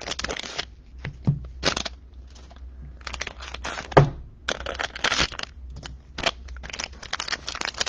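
Plastic wrappers of trading-card packs crinkling and rustling as the packs are handled, with a few short sharp clicks, the loudest about four seconds in.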